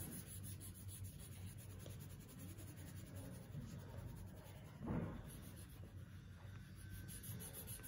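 Faint scratching of coloring on paper, a pen or crayon rubbed back and forth as the drawing is filled in. One brief louder bump about five seconds in.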